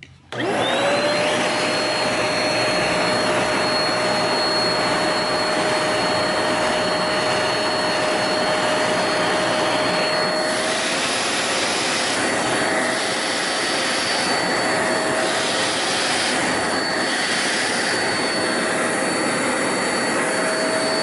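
Hoover Spotless portable carpet spot cleaner switching on about half a second in, its suction motor spinning up to a steady whine with a strong rushing hiss. From about ten seconds in, the hiss dips and returns every second or two as the suction nozzle is worked back and forth over the carpet.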